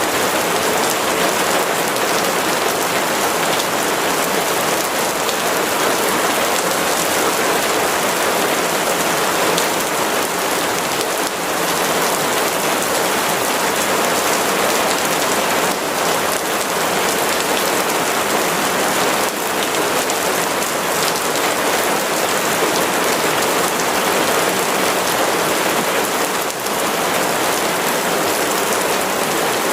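Steady rain falling: an even, continuous hiss of drops, with a few slightly sharper drop sounds now and then.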